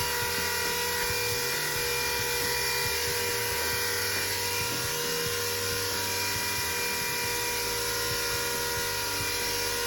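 Small electric pump motor running steadily with a constant whine, pumping RV antifreeze ballast into a tractor's rear tire.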